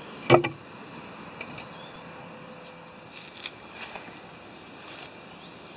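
A single sharp knock shortly after the start, then a few faint clicks, over a steady hiss with a thin, high, steady tone that fades out about halfway through.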